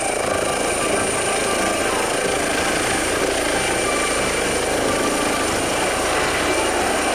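Air ambulance helicopter of the Eurocopter EC135 type lifting off and climbing: steady rotor and engine noise with a constant high-pitched whine.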